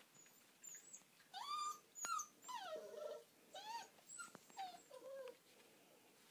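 Puppies whining and yelping: a run of short, high-pitched cries that slide up and down in pitch, starting about a second in and dying away after about five seconds.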